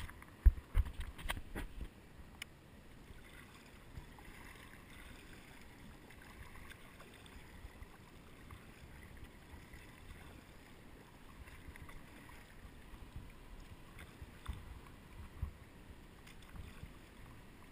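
Several sharp knocks of a finger handling the action camera in the first two seconds, then quiet kayak paddling: paddle blades dipping and water lapping against the hull.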